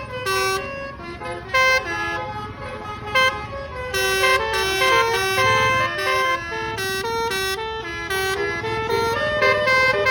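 Bus 'telolet' musical air horn (basuri type) playing a quick melody of short stepped notes, several to the second, with a few louder blasts. A low rumble runs underneath.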